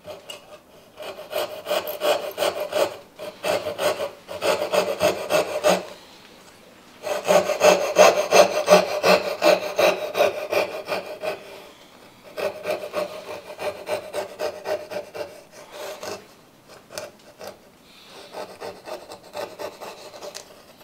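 Coping saw cutting through wood in quick back-and-forth strokes, removing the waste between dovetail tails. The sawing pauses briefly about six seconds in, is loudest just after, and turns fainter in the last few seconds.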